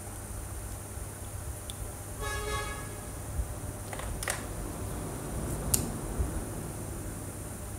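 A sheet of paper being handled and pressed flat on a folder, with two sharp clicks, over a steady hiss. A short honk-like tone sounds about two seconds in.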